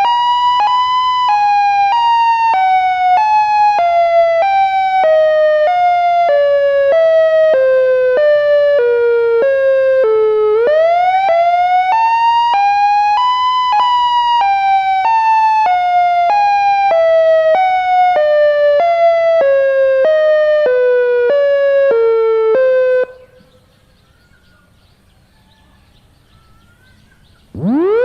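Synthesized Federal Signal siren sounding an alternate wail with a 'voice crack' glitch. The tone sweeps up, then sinks slowly in a jerky stair-step, its pitch jumping about every three-quarters of a second. It does this twice, cuts off suddenly, and after a few seconds of lull starts winding up again near the end.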